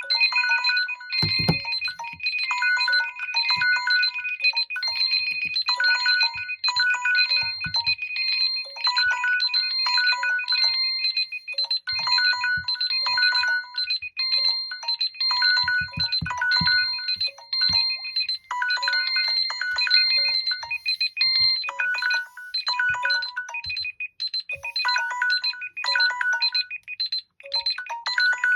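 Mobile phone ringtones and alarm tones: an electronic melody of short notes repeating in a steady pattern over held high tones. The held tones stop about three-quarters of the way through while the short notes carry on. Occasional short low buzzes come through underneath.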